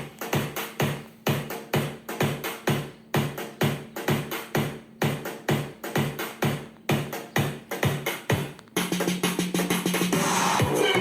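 Electronic dance music with a steady, fast drum-machine beat, played through a Mifa A90 portable Bluetooth speaker with its grille off. About nine seconds in, the track fills out and gets louder, with a held bass line coming in.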